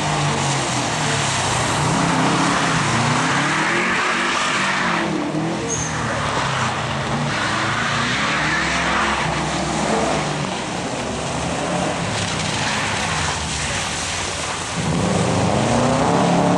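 Rally car engines revving hard through a tight course on wet tarmac. The engine pitch climbs and drops again and again as the drivers accelerate, lift off and change gear. About three-quarters of the way in, a louder engine starts up with rising revs.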